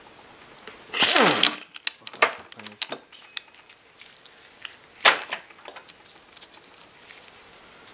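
Impact wrench run in one short burst of about half a second, its whine falling as it stops, spinning the nut off a Puch Maxi E50's ignition flywheel rotor. Light metal clinks follow as the loosened nut and parts are handled.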